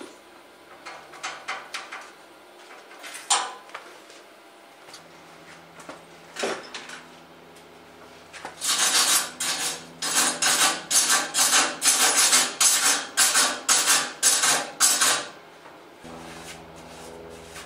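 A hand wire brush with steel bristles scrubbing a freshly TIG-welded joint on a steel tube frame, in rapid back-and-forth rasping strokes, about two a second, for some seven seconds. Before it come a few scattered clinks and two sharp knocks as the welding gear is set down.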